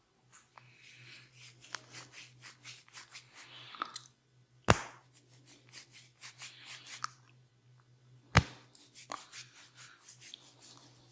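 Hands working over the head and body in a barber's deep tissue massage: scratchy rubbing and many small clicks, broken twice by a loud, sharp snap about four seconds apart.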